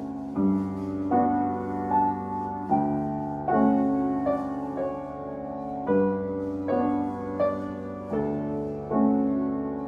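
Piano played slowly, a melody over held chords, with a new note or chord struck about every three-quarters of a second. It is played from memory.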